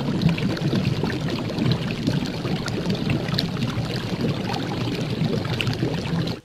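Steady crackling hiss of food sizzling in a frying pan, dense with small pops.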